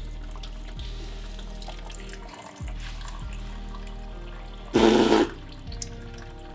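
Engine coolant running and splashing into a plastic drain pan under the car as it is drained, with a short loud rush of sound about five seconds in.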